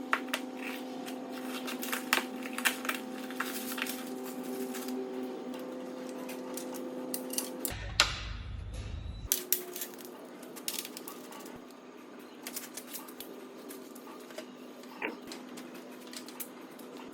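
Sharp metallic clicks and clanks from a hand-operated rod and flat bar bender being handled and worked, over a steady hum. The clicks come thickest in the first few seconds and again after about nine seconds.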